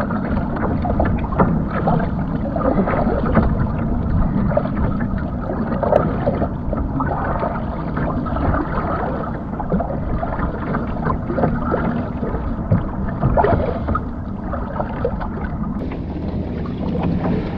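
Water splashing and sloshing around a kayak as it is paddled, a steady wash with many small irregular splashes.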